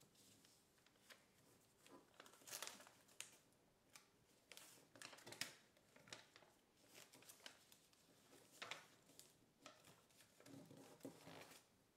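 Faint rustling and crinkling of a sheet of kraft paper as it is folded and creased by hand, in irregular short crackles with a few louder clusters.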